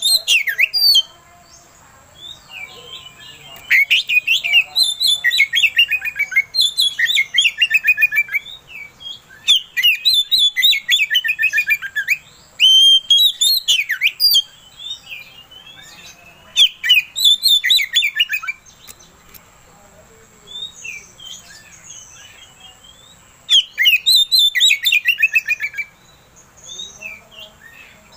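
Oriental magpie-robin singing in loud phrases of about two seconds, each a quick run of falling whistled notes and trills, with short pauses between phrases and a longer pause near the middle.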